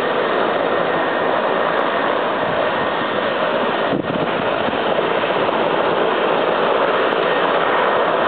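Strong storm wind from a nearby tornado, a loud steady rush buffeting the camera microphone, with a brief dip about four seconds in.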